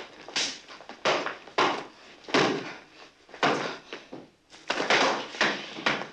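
A flurry of fists pounding on a man's chest: about ten dull blows at an uneven pace, with a short lull about four seconds in before a faster run of blows.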